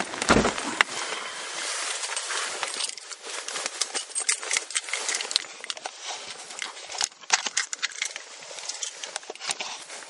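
A heavy thump about half a second in, then continual rustling with many small clicks and knocks from someone moving and handling things inside a vehicle cab.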